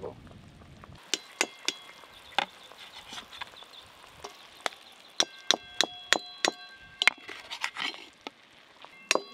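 Perforated metal skimmer clinking against the rim of a metal pot and a plate while lifting syrup-soaked fried sweets out: a string of sharp clinks and knocks starting about a second in, several of them ringing on briefly like struck metal.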